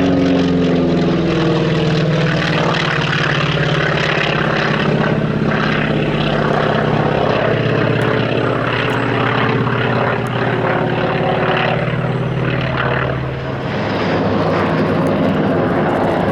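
Radial piston engines of a propeller warbird flying past: a loud, steady drone whose pitch slides down in the first second or so, then holds. It eases off briefly near the end.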